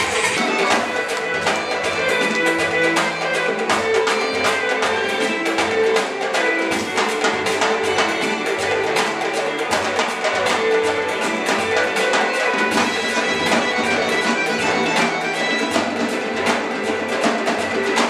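Caucasian folk music: hand-held frame drums beaten in a fast, dense, steady rhythm over a held melody line.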